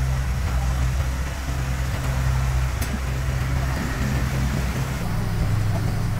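Asphalt paver's diesel engine running with a steady low drone; its note shifts about five seconds in.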